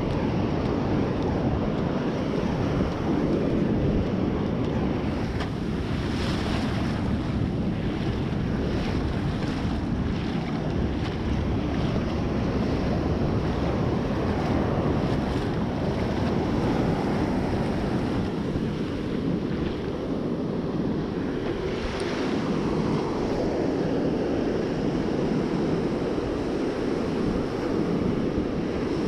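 Heavy storm surf breaking and washing up a sandy beach in a steady rush, with wind rumbling on the microphone.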